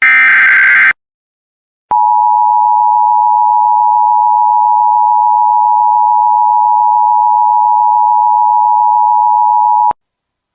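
An Emergency Alert System SAME header data burst, a harsh screeching chirp about a second long, then after a second's silence the EAS attention tone: one steady electronic tone held about eight seconds, starting and stopping with a click.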